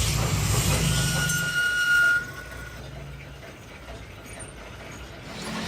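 Workshop machinery running with a low hum and a thin high squeal that peaks about two seconds in, then the noise drops off suddenly to a quieter machine sound.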